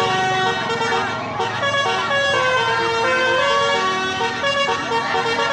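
Basuri telolet horn on a tourist road train playing a tune: several horn tones sounding together and stepping quickly from note to note.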